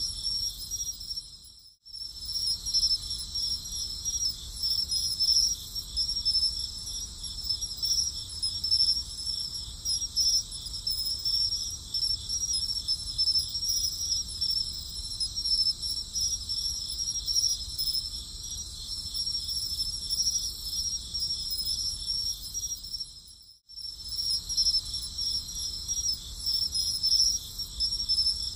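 Crickets chirping in a dense, steady chorus of rapid high-pitched trills, like a night-time insect ambience. The sound briefly fades out and starts again twice, about two seconds in and about five seconds before the end, as a looped recording does.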